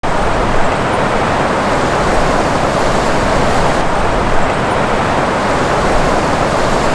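A loud, steady rushing noise that holds even throughout, with no distinct events.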